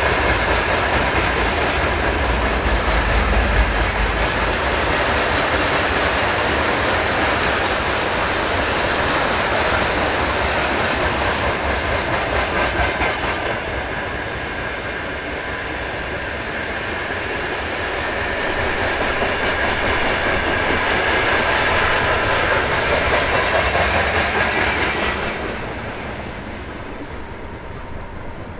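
Loaded mixed freight train's wagons, open gondolas and then covered hoppers, rolling past steadily. The sound falls away about 25 seconds in as the last wagon goes by.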